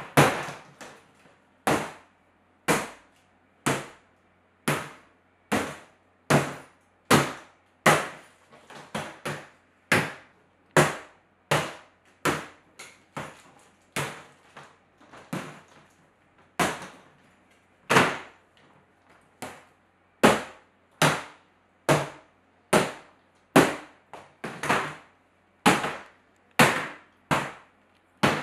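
A hammer striking the shell of a Galisto Kyrene hard-shell suitcase again and again, in sharp blows about once a second, with a few quicker, lighter taps in between.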